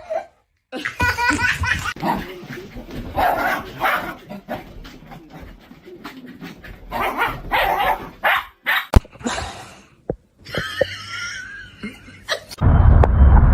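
People laughing while a dog vocalizes, across a few short clips cut together. Near the end a loud low rumbling noise suddenly takes over.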